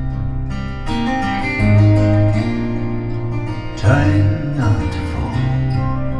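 Instrumental acoustic guitar passage with a steady bass line from a recorded song, played back through a 300B single-ended tube amplifier and bookshelf loudspeakers.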